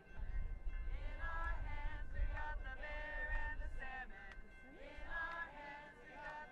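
A group of protesters' voices singing together in held, drawn-out notes, with a low rumble under the first half.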